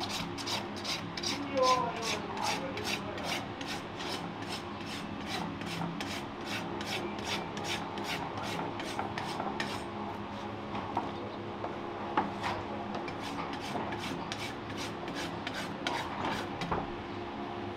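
Farrier's rasp filing a horse's hoof in quick, even strokes, about three a second.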